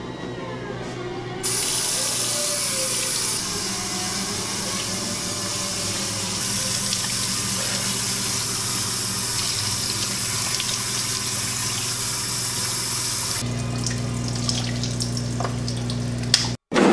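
Tap water running steadily into a restroom sink from about a second and a half in, splashing as hands are washed under it, over a low hum. The flow stops a few seconds before the end, leaving a few splashes, then the sound cuts out abruptly.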